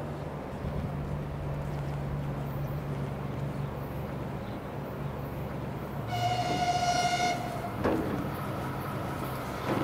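ES1 Lastochka (Siemens Desiro RUS) electric train approaching with a low steady rumble, then sounding one steady horn blast of about a second and a half, a little past halfway. A short knock follows just after the horn.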